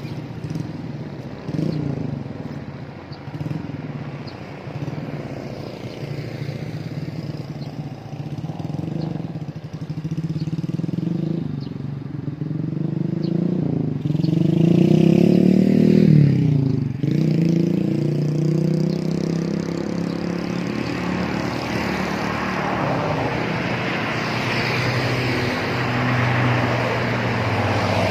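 Heavy vehicles driving past on a road. Engine pitch rises and drops back several times. One passes closest and loudest about halfway through, its pitch falling sharply as it goes by, and another vehicle's engine and tyre noise builds toward the end.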